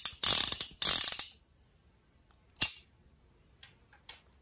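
Cimarron Thunderer single-action revolver being worked by hand: two quick bursts of metallic clicking in the first second and a half, then a single sharp click about two and a half seconds in and a few faint ticks.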